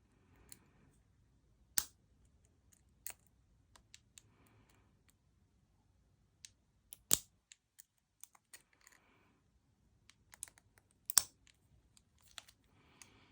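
Lock pick and tension wrench working inside a laminated steel padlock that is gritty and stiff: scattered small metallic clicks and scrapes, with sharper clicks about two, seven and eleven seconds in.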